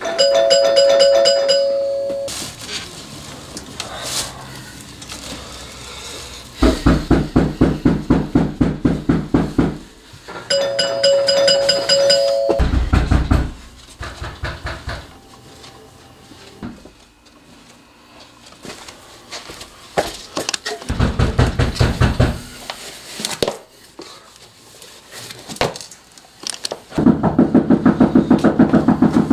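A chime of two held tones sounds at the start and again about ten seconds in, between stretches of fast, pulsing music.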